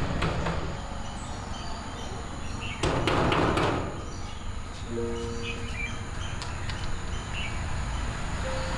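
Quiet soundtrack ambience of birds chirping, with a sustained chord of held notes coming in about five seconds in. A brief loud burst of noise comes about three seconds in.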